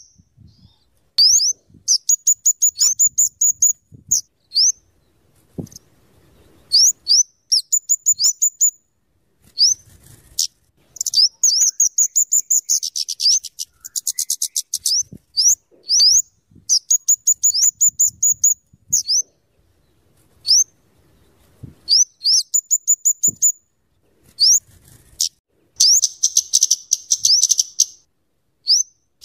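Flowerpecker (kemade or cabe-cabean) singing loudly. Short, sharp, high chips are mixed with fast rattling trills of rapid ticks, each run about a second long, in repeated bursts with short pauses between them.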